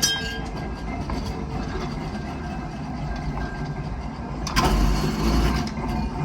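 Double-truck Birney streetcar rolling in, a steady low rumble of motors and wheels on rail. A short sharp noise with a brief high ring comes at the start, and a louder rush of noise lasts about a second, some four and a half seconds in.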